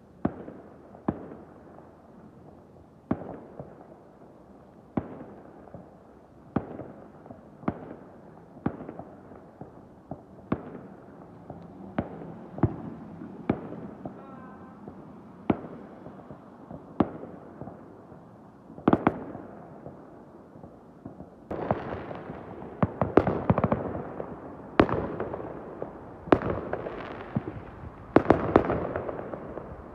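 Fireworks exploding: single sharp bangs every second or two, then from about twenty seconds in a denser, louder barrage of overlapping bangs and crackle.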